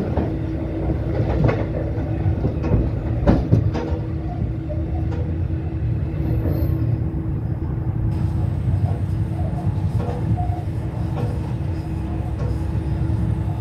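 A locomotive-hauled train running along the track, heard from an open platform on board: a steady low rumble of engine and wheels with a constant hum. Sharp wheel knocks over rail joints come in the first few seconds.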